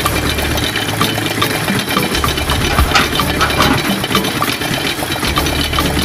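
Small stationary engine running steadily at idle, with a regular tick about three times a second over a low hum.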